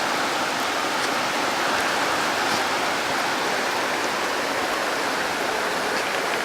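Heavy rain falling hard and steadily, a dense even hiss with a few drops ticking close by.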